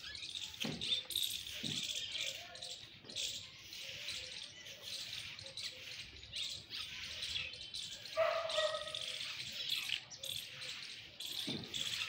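Birds chirping in a dense, continuous chorus of short high-pitched notes, with a brief lower pitched call about eight seconds in.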